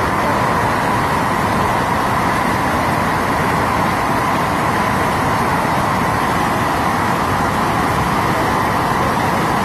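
Muddy floodwater rushing in a steady, loud torrent, pouring over a drop and churning past.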